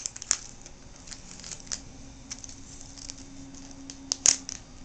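Small clicks and crackles of clear yellow adhesive tape being peeled off the ribbon connector on the back of a laptop screen panel, with fingers working the plastic edge and a brief louder scrape about four seconds in.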